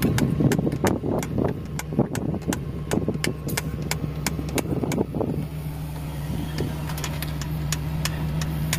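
Isuzu 10PE1 V10 diesel engine idling steadily, with scattered sharp clicks and taps over roughly the first five seconds.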